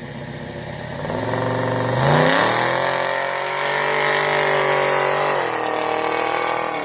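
Vehicle engine revving: the pitch climbs about two seconds in, holds high, eases back down after about five seconds, then cuts off abruptly near the end.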